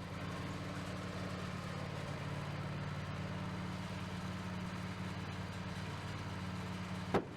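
Wood-Mizer portable sawmill running steadily, its engine giving a constant hum with a band-saw hiss above it. One brief click near the end.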